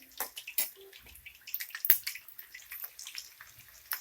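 Chicken kebab pieces deep-frying in hot oil, with dense, irregular crackling and spitting and one sharper, louder crack about two seconds in. The crackle comes from the water in the chicken boiling off; once it stops altogether, the chicken is cooked through.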